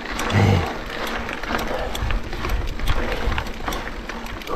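Mountain bike riding over a rocky line: tyres crunching over stones and the bike rattling, with many sharp clicks and knocks, picked up by a chest-mounted camera. A brief low thud about half a second in is the loudest moment.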